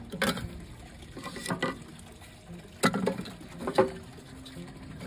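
Small wood fire burning in a kamado grill's firebox: a soft hiss with several sharp cracks and pops about a second apart.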